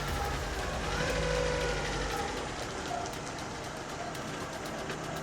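Vauxhall Corsa's petrol engine running steadily with a low hum.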